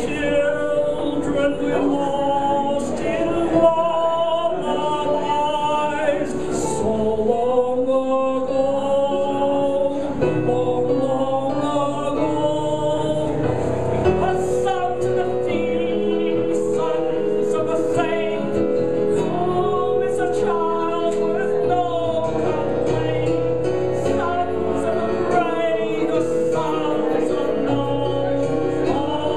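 A woman singing a slow cabaret song through a handheld microphone, with piano accompaniment; her voice holds long notes and slides between them.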